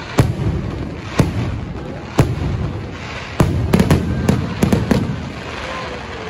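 Aerial firework shells bursting directly overhead, loud. Single sharp booms come about a second apart, then a quick cluster of bangs between about three and a half and five seconds in, each rumbling and echoing away.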